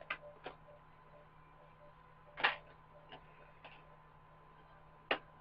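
Scattered sharp clicks and taps of hard plastic as an action figure is worked out of its plastic packaging tray. The loudest click comes about halfway through, with another near the end.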